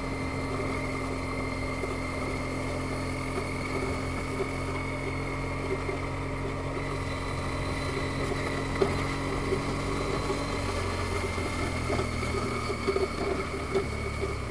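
Motorcycle engine running at steady revs while riding, picked up by a helmet camera along with wind rush. The engine note shifts about eleven seconds in.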